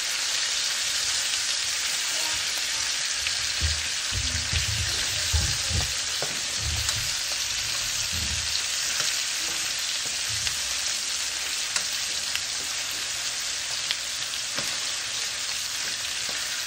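Lamb chops frying with a steady sizzle, with a run of low bumps about four to eight seconds in.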